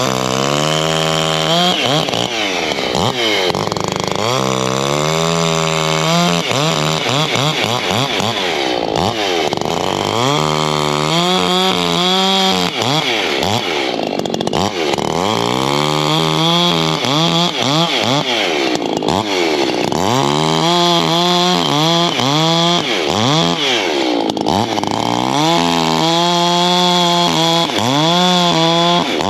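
Ported Echo CS-620 two-stroke chainsaw bucking firewood. The engine runs at high revs, and its pitch repeatedly sags under load in the cut and climbs back as the chain clears the wood.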